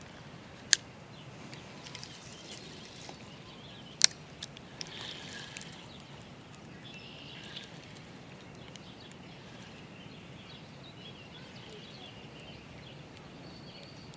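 Quiet outdoor ambience with faint bird chirps, broken by two sharp clicks, one about a second in and one at about four seconds.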